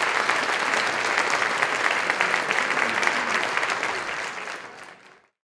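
Audience applauding with many hands clapping, fading away near the end.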